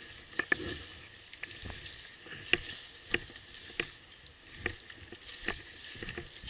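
Footsteps through woodland undergrowth, crunching leaf litter and snapping twigs at a walking pace, with a light rustle of leaves and gear.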